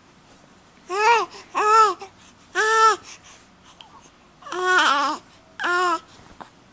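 Young baby cooing: five short vowel-like sounds with a rising-and-falling pitch, the fourth longer and wavering.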